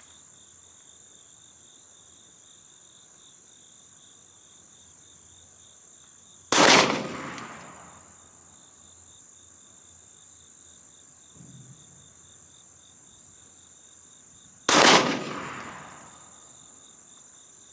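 Two single shots from a Ruger SR9C 9mm pistol, about eight seconds apart, each with a short echo trailing off. A steady high insect drone runs underneath.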